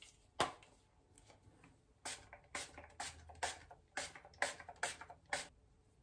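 A pump-spray bottle of facial toner mist sprayed onto the face in quick bursts, about nine short hissing sprays at roughly two a second, after a single sharp click about half a second in.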